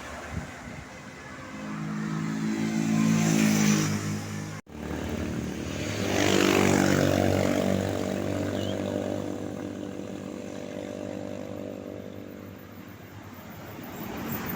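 Large tour buses passing on a road, the engine sound swelling loud and then easing off. It happens twice, split by a hard cut about four and a half seconds in.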